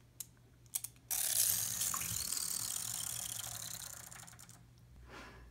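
Wind-up toy's clockwork mechanism: a few clicks, then a fast ratcheting whirr that starts suddenly about a second in and fades away over some three seconds as the spring runs down.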